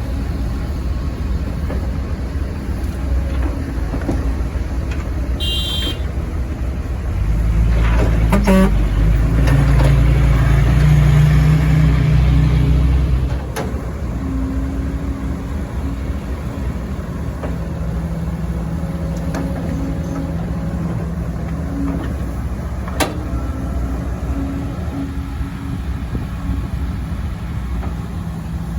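Heavy diesel earthmoving machinery running steadily as an excavator loads a dump truck. The engine grows louder and deeper for about six seconds in the middle, then settles back. There is a brief high beep about five seconds in.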